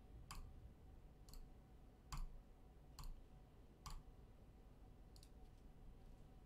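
Computer mouse clicking, about six single clicks spread unevenly over several seconds against near-silent room tone.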